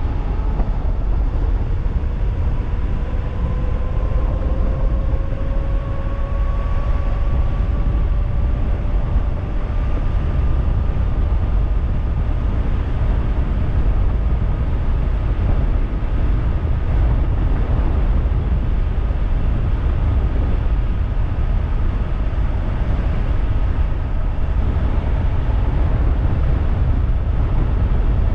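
Heavy wind rush on the microphone at speed, over the whine of a 3000-watt DIY e-bike's electric motor. The whine rises in pitch over the first several seconds as the bike accelerates, then holds steady at top speed.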